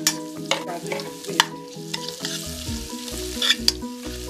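A metal slotted spoon stirs and scrapes fried onions and ginger-garlic paste around an aluminium kadai. The food sizzles in the oil, and the spoon clinks sharply against the pan several times.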